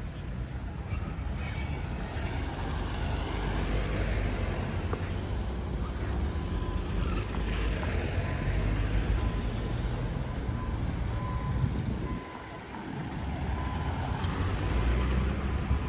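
Outdoor traffic noise with wind buffeting the microphone, a steady low rumble that drops briefly about twelve seconds in. A faint, high, pulsing beep runs through the second half.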